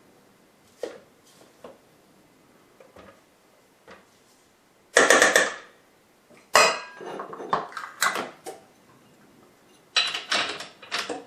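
A spatula and stand-mixer parts knocking and scraping against a stainless steel mixing bowl. A few light taps come first, then loud clattering about five seconds in, a longer run of knocks and scrapes just after, and more near the end. The mixer motor is not running.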